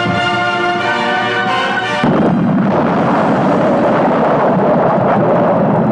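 Orchestral music with brass holding sustained chords, which breaks off suddenly about two seconds in for a loud, dense rumbling roar with no clear notes.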